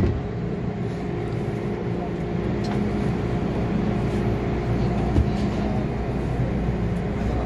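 MTR M-Train electric multiple unit pulling away from a station platform, heard from inside the car: steady running noise of traction motors and wheels on rail, with a hum and a few light knocks.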